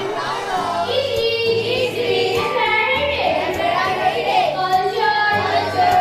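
A group of schoolchildren singing together in unison, with long held notes.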